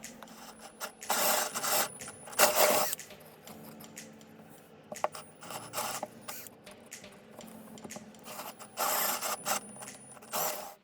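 Four short bursts of scraping or rubbing on wood, the first two about a second apart and the last two near the end, with light clicks and knocks of handling between them.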